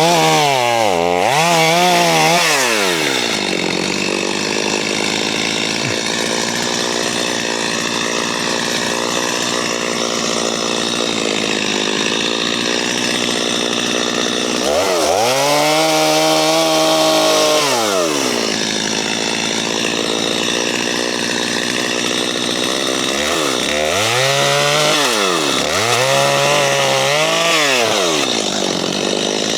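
An engine running steadily under work, swelling up in pitch and falling back at the start, again about fifteen seconds in, and twice near the end.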